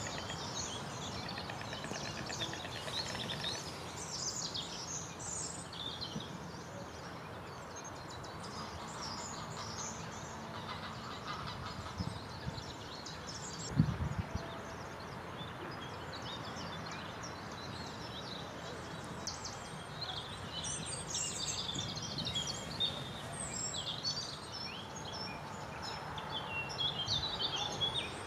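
Small songbirds chirping and singing in scattered high trills over a steady outdoor background hiss. The calls are thickest near the start and again toward the end. One brief low thump comes about halfway through.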